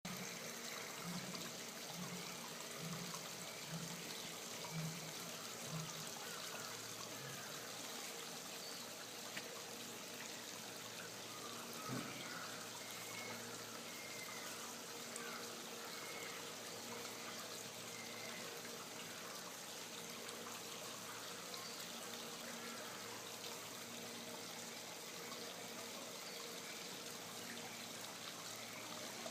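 Steady running water, with a few soft low thumps about once a second in the first six seconds, a single click near the middle, and faint short high chirps.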